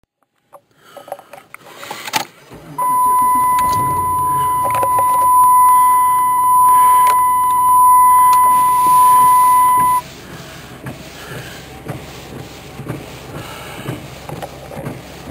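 A loud, steady electronic tone at one pitch, held for about seven seconds and then cut off suddenly, with clicks and handling knocks before it and a low background rumble with small knocks after it.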